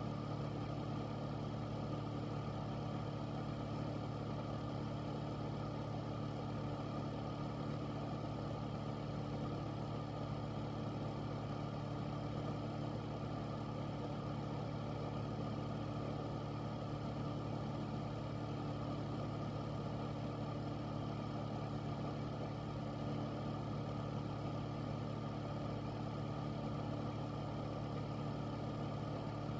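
Air filter fan running steadily: an even rush of moving air with a constant low hum of a few steady tones underneath.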